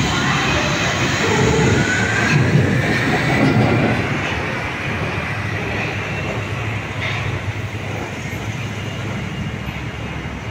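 Wuppertal Schwebebahn suspended monorail car, a Generation 15 unit, pulling out and running along its overhead steel rail. A rising whine can be heard as it speeds up, and the running noise is loudest for the first few seconds, then eases as the car moves away.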